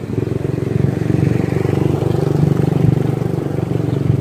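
Motorcycle engine running while riding, with wind rumble on the microphone, getting louder about a second in as the bike pulls out of a U-turn.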